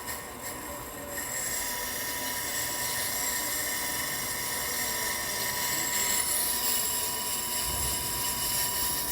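Bench brake lathe resurfacing a brake rotor: the machine runs with a steady high whine, and about a second in a harsher, hissing sound from the cutting bit shaving the rotor face joins and holds.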